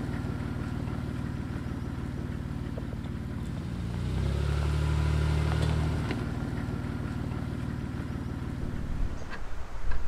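Jeep Wrangler JK engine running as the 4x4 drives slowly across grass, a steady low hum that grows louder and shifts up in pitch about four seconds in, then eases back. A few short clicks near the end.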